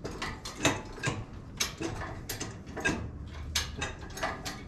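Metal hand tools clicking and clanking: a series of irregular sharp metallic clicks, a few a second, as a mower wheel is being worked on.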